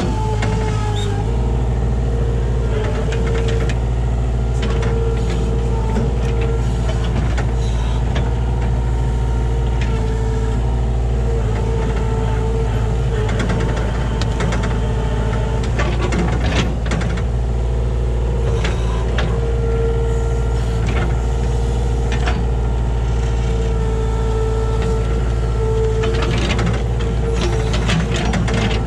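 Kubota KH-60 mini excavator's diesel engine running steadily under load, with a hydraulic whine that swells and fades as the controls are worked, and occasional knocks from the machine at work.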